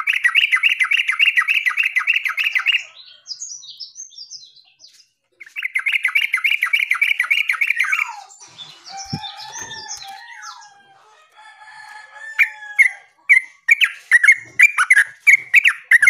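Yellow-vented bulbul (terucukan) calling loudly. Two bursts of rapid chattering trill are broken by softer scattered notes, then a run of loud separate notes comes near the end.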